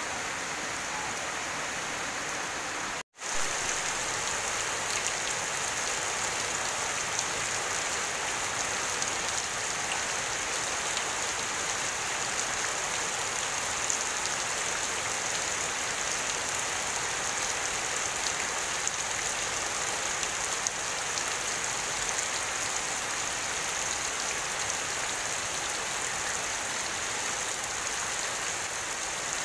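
Rain falling steadily on leaves and puddled ground, an even hiss throughout. It drops out for an instant about three seconds in.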